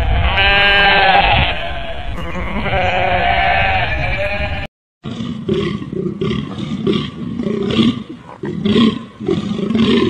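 Goat bleating: one long wavering bleat, then a second, lower one. After a short break, a run of short, rough grunting calls, about two a second, from a bull elk.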